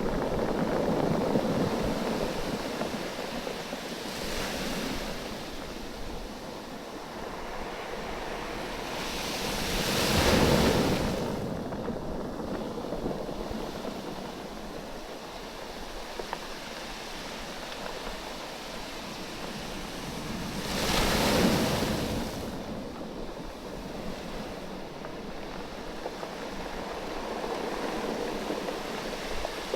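Waves surging in and drawing back over a beach of rounded oval stones, the stones rattling and knocking against one another in the moving water. Two bigger waves break about ten seconds apart, roughly a third of the way in and again near three-quarters.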